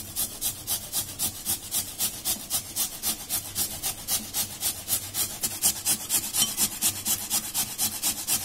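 A peeled raw potato grated by hand on a flat stainless-steel grater: rapid, even rasping strokes, about five or six a second.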